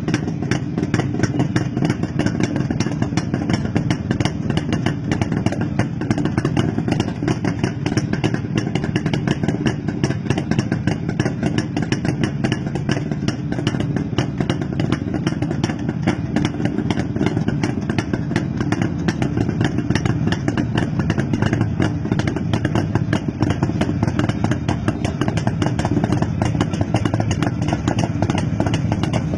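Jawa/Yezdi two-stroke motorcycle engine idling steadily with a quick, even exhaust beat.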